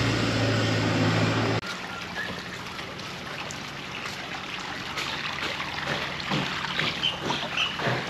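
A steady low mechanical hum that cuts off abruptly about a second and a half in. Then the water of a garden koi pond trickling, with occasional small splashes and ticks.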